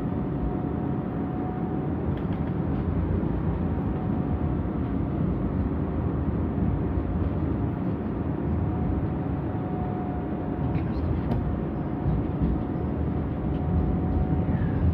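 Tram running along its rails, heard from inside the passenger car: a steady low rumble of wheels on track with a thin, even whine through it.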